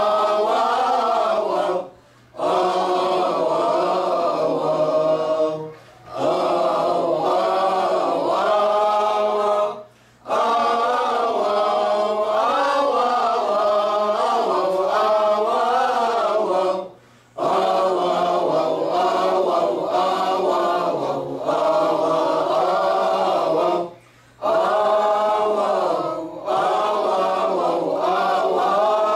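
Small mixed choir of men and women singing a church hymn unaccompanied, following one melody line. The singing breaks off briefly between phrases, about six times.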